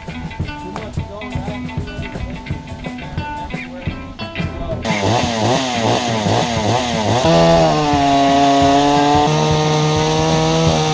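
Plucked-string music for about five seconds, then a chainsaw engine cuts in. It is blipped up and down in quick revs, then held at high revs for the last few seconds.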